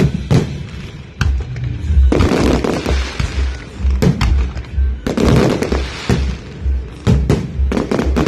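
Fireworks going off: several sharp bangs and stretches of dense crackling. Underneath runs music with a steady low beat about twice a second.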